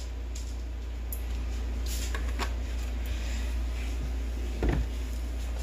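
Kitchen handling sounds from a large plastic jug of vegetable oil being poured into a nonstick frying pan: light clicks and knocks, then a louder thump about four and a half seconds in as the jug is moved away, over a steady low hum.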